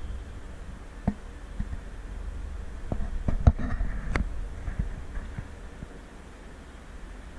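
Wind rumbling on the microphone, with a handful of sharp knocks and clicks in the middle, the loudest a little over three seconds in, typical of a handheld camera being handled.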